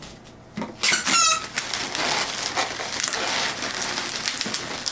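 Latex modelling balloons squeaking and rubbing against each other as they are twisted and handled, with one loud squeak falling in pitch about a second in, then steady rubbery crinkling.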